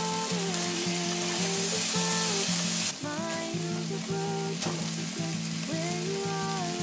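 Beef cubes and kimchi sizzling in an oiled frying pan, a steady hiss that drops abruptly about three seconds in, once cooked rice is in the pan and being stir-fried with a spatula. Background music with a gentle melody plays along.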